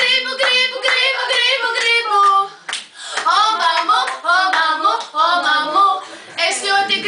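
A woman singing, her voice held on sustained, wavering notes.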